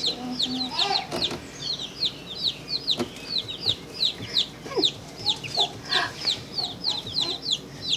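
A brood of baby chicks peeping without pause: many short, high chirps that each fall in pitch, overlapping at several a second.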